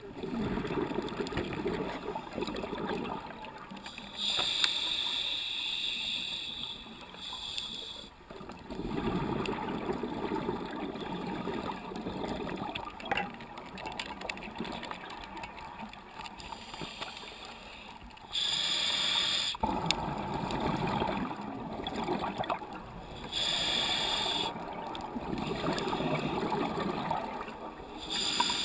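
A scuba diver breathing through a regulator underwater: a hissing inhale through the demand valve every several seconds, each followed by a longer low gurgling rush of exhaled bubbles.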